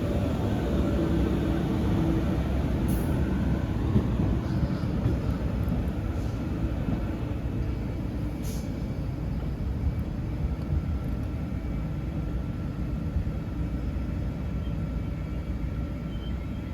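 A train standing at a station platform: a steady low rumble with a faint hum that eases slightly over the few seconds.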